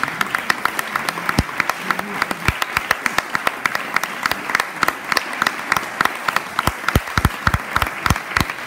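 Audience applauding steadily: a dense patter of many hands clapping. In the second half a few louder, heavier claps stand out.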